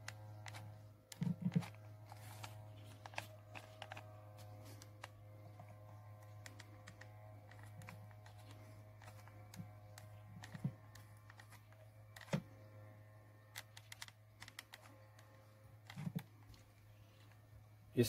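Faint scattered clicks and taps from a hot glue gun being worked along a groove in a plastic washing-machine tub, over a steady low hum.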